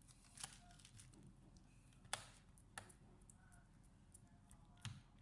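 Near silence with a few small, sharp clicks and taps, the loudest about two seconds in and another near the end.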